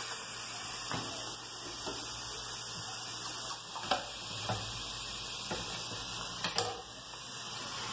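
A steady hiss, with a few light knocks and clicks of kitchen handling at a counter.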